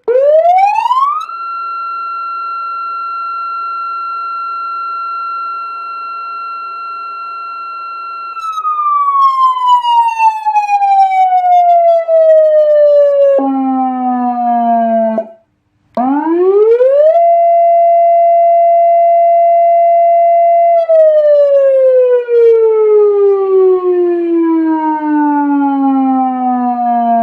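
200-watt electronic siren sounding through its speaker in a wind-up, wind-down mode. The tone sweeps up quickly, holds one steady high note for about seven seconds, then slowly glides down like a coasting mechanical siren. After a brief low tone and a short cut, it rises again, holds a lower steady note, and glides down once more near the end.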